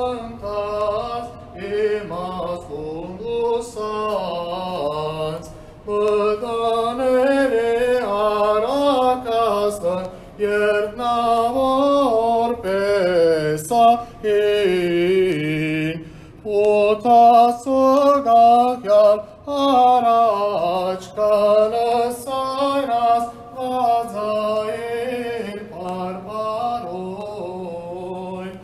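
A man chanting an Armenian Church liturgical hymn unaccompanied, a single melodic line sung in phrases with short pauses between them.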